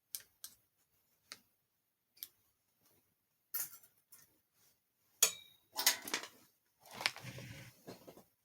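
Light, scattered clicks and taps of handling while crocheting with a wooden crochet hook and yarn. A sharper click comes about five seconds in, followed by louder rustling and knocking near the end.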